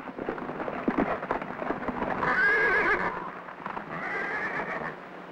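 A roped black stallion whinnying twice, shrill wavering calls, the first about two seconds in and the second near the end. Irregular knocks and thuds in the first two seconds.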